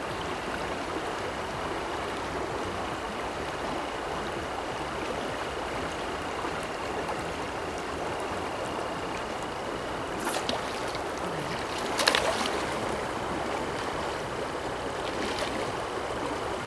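Creek current rushing steadily through a riffle, with a brief sharper sound about ten seconds in and a louder one about twelve seconds in.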